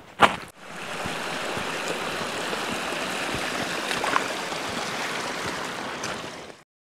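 A stream running steadily, a continuous even rush of water, which cuts off abruptly near the end. A single sharp knock sounds just before the water begins.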